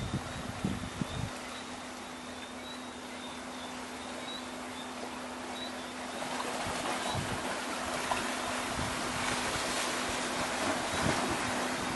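Steady wash of surf with wind buffeting the microphone in the first second or so, under a low steady hum and faint high chirping.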